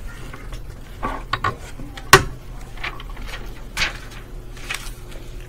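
Scattered sharp clicks and light knocks from glass slides and the microscope being handled, with one louder knock about two seconds in, over a low steady hum.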